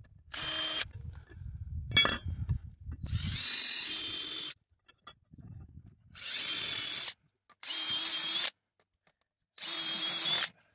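DeWalt 20V MAX cordless drill boring holes in a brass bar, run in five short bursts of about a second each. Knocking and scraping sounds come between the first runs.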